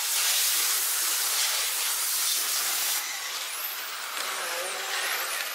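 1/10-scale electric touring cars racing on asphalt: a steady high hiss of tyres and drivetrains, with the thin whine of brushless motors rising and falling in pitch, heard plainly in the second half.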